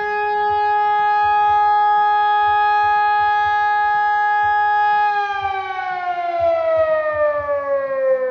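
Fire station siren sounding a steady tone, then, about five seconds in, sliding slowly down in pitch as it winds down. It is the fire alarm calling volunteer firefighters to the station.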